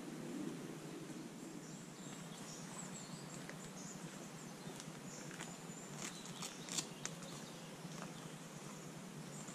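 Quiet outdoor ambience: a steady low background hiss with faint, high bird chirps, and a few sharp clicks about six to seven seconds in.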